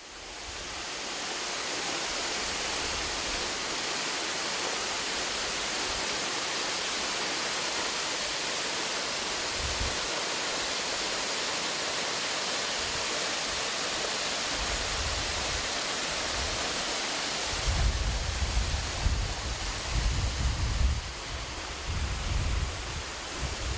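Steady rushing of a waterfall, fading in at the start. About three-quarters of the way through it changes to a closer, more uneven rush with low rumbling in it.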